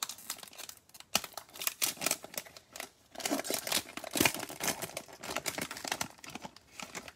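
Crinkling and tearing of cellophane trading-card pack wrappers, with irregular crackles and clicks as the packs and cards are handled.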